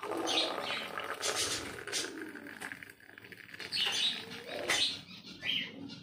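Hot cinnamon water poured from a steel bowl into a glass tumbler, a steady splashing trickle, while pet parrots chirp and squawk a few times over it.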